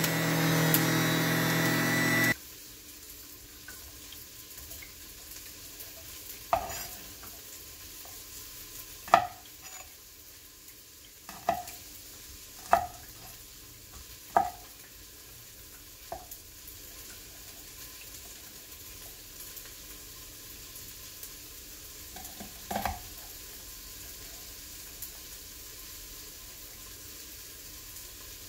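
A Hamilton Beach centrifugal juicer's motor running for about two seconds, then cut off. After that, a chef's knife chopping on a wooden cutting board: about seven single chops, spaced a second or more apart, slicing chili peppers.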